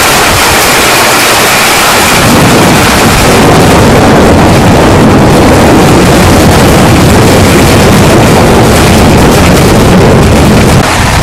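Thunderstorm loud enough to overload the microphone: a constant rush of noise, with a deeper thunder rumble building about two seconds in and easing slightly near the end.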